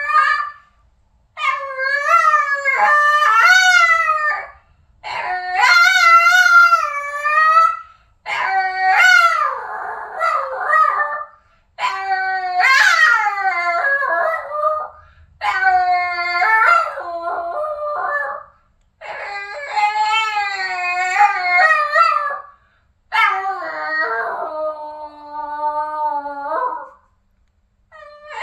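Boston terrier howling: about seven drawn-out, wavering howls, each a few seconds long with short breaths between. One near the middle rises sharply in pitch, and the last ones are lower.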